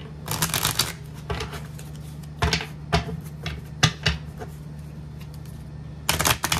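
Tarot cards being handled on a table: scattered short taps and rustles, with a dense flurry about half a second in and another near the end, over a steady low hum.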